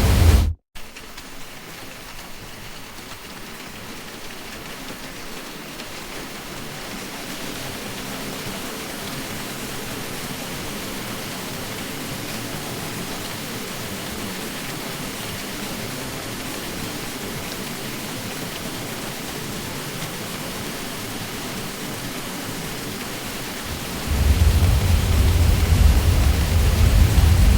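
Ceiling fan drone: a steady, even whooshing hiss of air from the blades. A deep low hum cuts out abruptly about half a second in, with a split-second dropout, leaving the hiss, which slowly swells. The deep hum comes back near the end.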